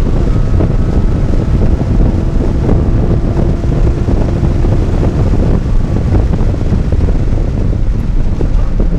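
Heavy wind and road noise inside a Porsche 981 Cayman's cabin at about 120 mph on track. A faint steady engine note sits beneath it and fades about halfway through as the car comes off the throttle.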